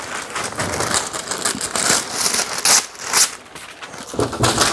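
Parchment baking paper crinkling and rustling as it is handled and spread out, with a couple of sharper crackles about three seconds in.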